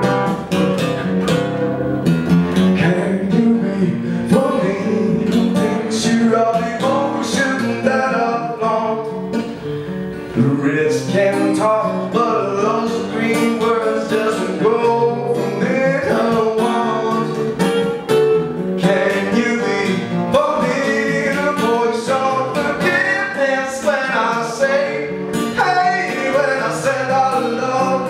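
Acoustic guitar played continuously in a live solo performance, with a man singing over it; the voice comes in more strongly about ten seconds in, where the playing gets louder.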